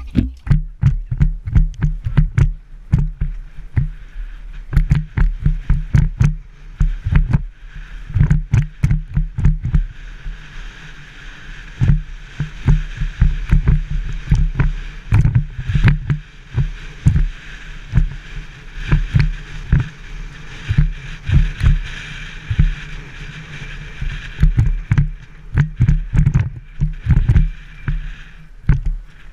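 Helmet-mounted action camera banging against its loose mount, knocking hard in irregular clusters as the mountain bike jolts down a bumpy trail, over a steady rush of wind and tyres. The banging is the sign of a badly attached camera that needs padding.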